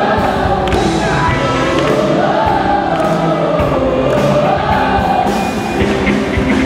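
Music with singing voices, a sung melody over a full accompaniment.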